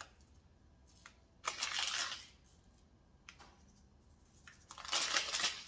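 Two short bursts of dry rustling, about a second and a half in and again near the end, with a few light clicks between: sesame seeds being shaken from a container onto a raw steak.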